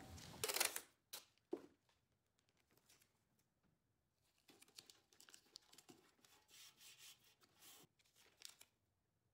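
Blue painter's tape being pulled off its roll: a short tearing rip about half a second in and a couple of smaller rips just after. Then only faint rubs and crinkles as the tape is pressed down onto the steel can.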